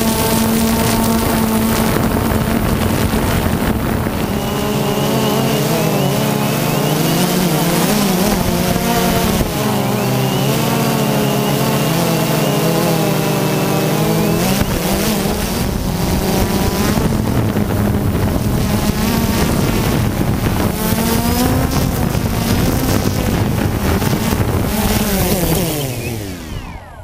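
Multirotor drone's electric motors and propellers whining, with the pitch shifting up and down as the throttle changes, over rushing air noise. Near the end the whine falls in pitch and dies away as the motors spool down after landing.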